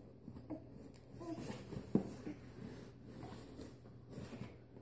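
Faint scraping and creaking of a small cardboard box as a baby shifts and turns around inside it on carpet, with a single sharper knock about two seconds in.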